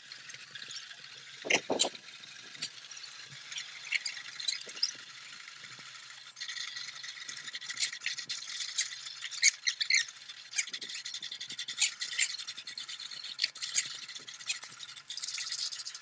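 Nili Ravi buffaloes being hand-milked into steel buckets: a quick run of hissing squirts of milk with many light clicks, a little louder from about six seconds in.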